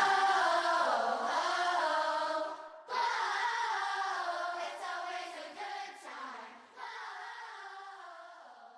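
Layered, choir-like sung vocal harmonies with no beat, held and wavering in pitch. They fade gradually and die away near the end, at the close of a pop song mashup.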